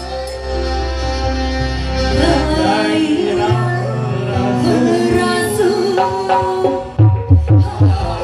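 Dangdut music played loud through a large sound system: a wavering melody line over held chords, then heavy drum beats in the bass from about seven seconds in.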